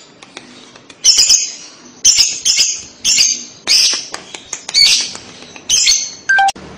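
Fischer's lovebird giving loud, shrill squawking calls in short separate bursts, about one or two a second. Near the end comes a brief clear tone that drops to a lower pitch.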